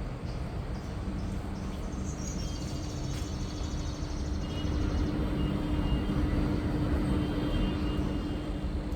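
Split air conditioner's outdoor unit running: a steady hum from the compressor over the whoosh of the condenser fan, a little louder in the second half.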